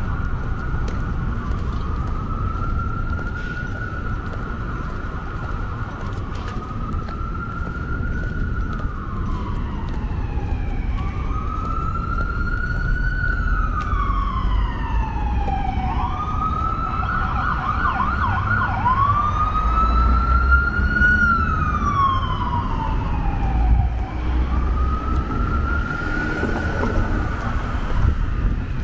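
An emergency vehicle siren wailing, slowly rising and falling every few seconds, with a brief fast warble a little past halfway, over the low rumble of street traffic.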